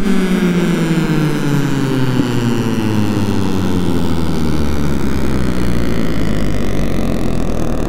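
Drone music: a loud droning tone with many overtones sliding slowly and steadily downward in pitch over a noisy wash, settling into a low rumble in the last few seconds.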